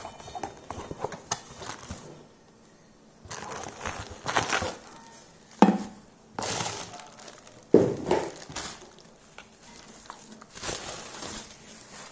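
Plastic bubble-wrap packaging crinkling and rustling in several bursts as it is handled and pulled off a shaker bottle, with two sharp knocks against the glass tabletop, about halfway and two-thirds of the way through.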